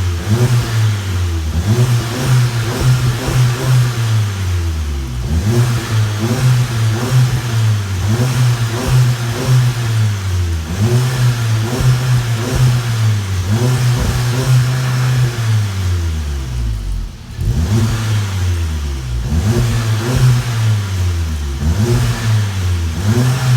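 2017 VW GTI's turbocharged four-cylinder engine, with an AWE Touring silver-tip exhaust and a Unitronic cold air intake, revved again and again: the pitch climbs sharply and falls back a dozen or so times, with a short drop about two-thirds of the way through.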